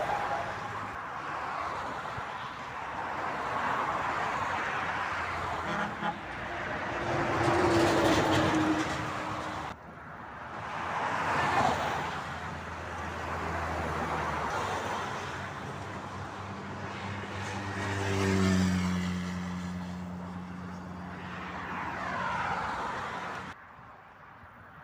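Motor vehicles passing on a motorway one after another, each a swell of tyre and engine noise that rises and fades. Past the middle, a heavy vehicle's engine note drops in pitch as it goes by. The sound cuts off suddenly twice.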